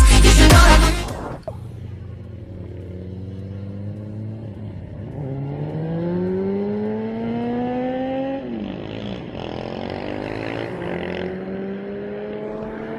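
Music cuts off about a second in, then a car engine accelerates through its gears: the pitch rises steadily, drops suddenly at a gear change about 8 seconds in, and rises again as the car pulls away.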